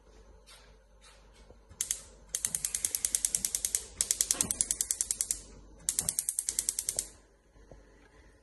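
Gas hob's electric spark igniter clicking rapidly, about six clicks a second, in three runs, the longest about three seconds, as a burner is being lit.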